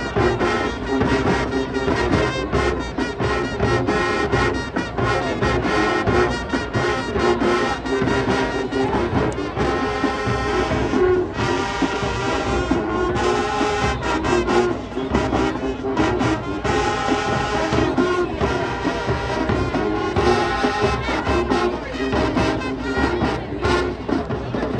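High school marching band playing, with full brass chords over drums.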